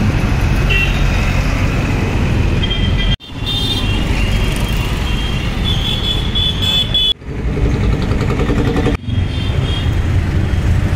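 Busy street traffic: vehicle engines running with horns tooting now and then. The sound breaks off sharply three times.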